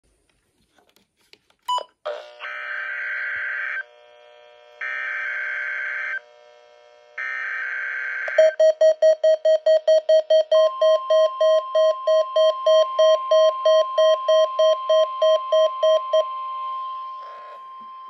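Midland S.A.M.E. weather alert radio receiving a NOAA Weather Radio Required Weekly Test: three buzzy bursts of SAME digital header data, then the radio's own alert beeping about four times a second. About halfway in the steady 1050 Hz warning alarm tone joins it and keeps sounding after the beeping stops near the end.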